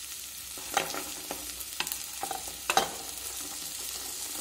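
Onions and tomatoes sizzling in oil in a steel kadai as a spoon stirs them, with a few sharp clinks of the spoon against the pan.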